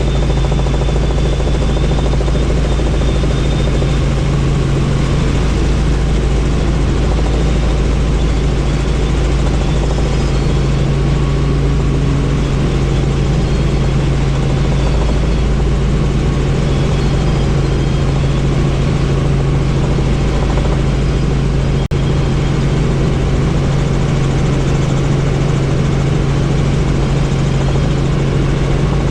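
Helicopter in flight with the doors off: steady rotor and engine noise, a loud low hum that holds even throughout. There is a brief click a little past twenty seconds in.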